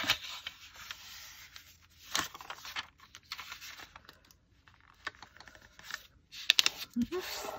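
Paper being handled at a desk: rustling, scraping and tearing, with scattered sharp crackles as sheets are creased and pressed.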